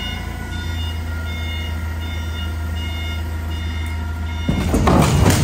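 Forklift engine running steadily while the forklift carries a cut-off truck cab, with short high beeps repeating over the engine sound. Near the end comes a loud, rattling burst of noise lasting about a second.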